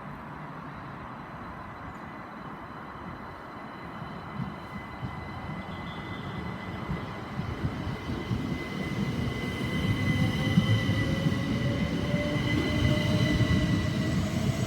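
Pair of Class 375 Electrostar electric multiple units pulling out and accelerating, wheel and rail rumble growing steadily louder. About halfway through, a traction motor whine rises in pitch over the rumble.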